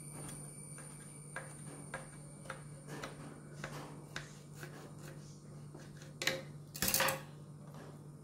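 Knife cutting through a toasted sandwich on a plate: a run of small, irregular crunchy clicks, then a louder scrape and clatter about six to seven seconds in. A steady low hum runs underneath.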